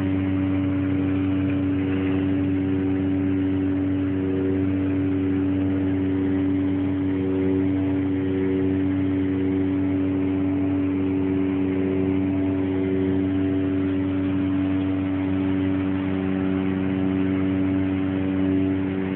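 Loud, steady droning hum of unknown source, several held tones over a low rumbling hiss, with no change in pitch or level: the kind of noise reported as strange sounds coming from the sky.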